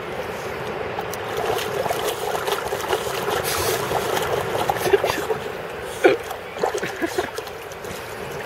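Shallow water splashing and sloshing as a dog paws and digs at the bottom with its head down in the water. Irregular splashes throughout, the sharpest about five and six seconds in.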